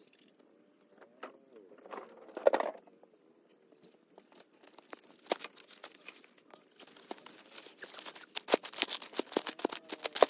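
Cardboard being handled and laid on the ground, rustling and crinkling with scattered scrapes and clicks. There is a loud crackle about two and a half seconds in, and the handling is busiest over the last few seconds.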